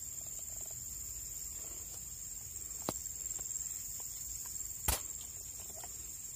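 Insects buzzing in a steady, high drone. Two sharp clicks come through it, one about three seconds in and a louder one about five seconds in.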